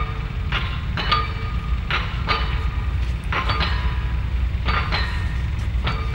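Repeated sharp metallic clinks, often in pairs, each leaving a brief ringing tone, over a steady low rumble.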